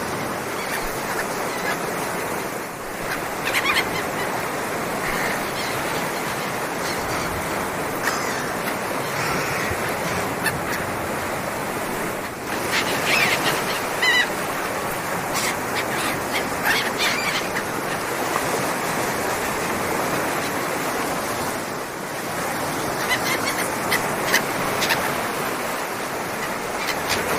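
Sea surf washing steadily, with short bird calls breaking in a few times.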